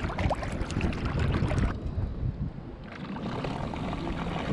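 Water rushing and splashing along the hull of a moving canoe, with wind on the microphone. The sound goes duller for about a second near the middle, then comes back.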